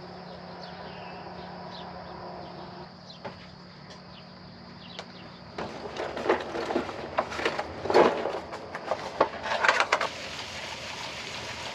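Rustling and clicking of fishing tackle being handled: rummaging in a backpack and fiddling with a small packet of tackle, with scattered sharp clicks from about six seconds in. A faint steady hum sits under the first half.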